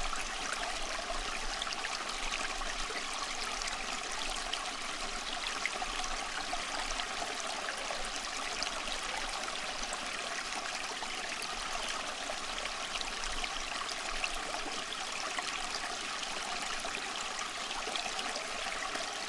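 Steady, even rushing noise like a flowing stream, unchanging throughout, with a faint low hum beneath it.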